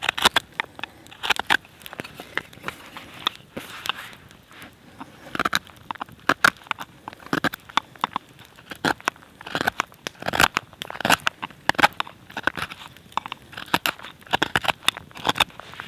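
Carving knife shaving oak by hand: an irregular run of short, sharp cutting strokes, several a second, each one a quick scrape through the wood.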